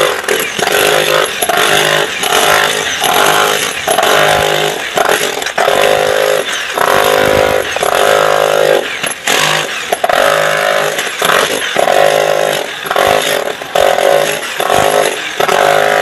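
Electric chipping hammer breaking concrete, run in short bursts about one or two a second with a longer break about nine seconds in, each burst a rough rapid hammering.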